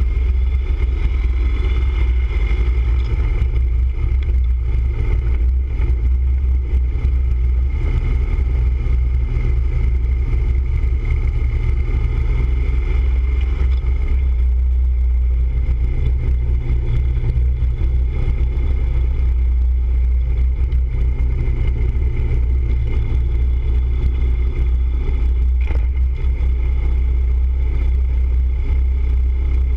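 Touring motorcycle riding steadily along a town street, heard from a camera mounted on the bike: steady engine rumble mixed with wind buffeting the microphone.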